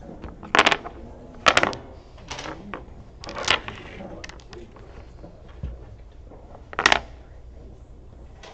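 Domino tiles clacking on a wooden tabletop as they are played and gathered in: several sharp clacks over the first half, and one more near the end.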